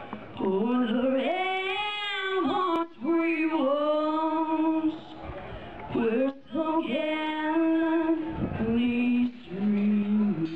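A woman singing the national anthem, one voice in long held notes with short breaks between phrases.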